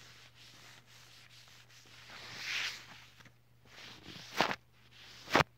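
Rubbing and wiping across a phone's camera lens right at the microphone: soft scratchy strokes, a louder swish about two and a half seconds in, and two sharp rubs near the end, the last one the loudest.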